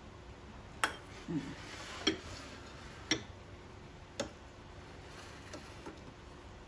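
A metal spoon tapping and scraping against an aluminium foil bowl while glutinous rice is packed in and pressed firm. It gives four sharp clicks about a second apart.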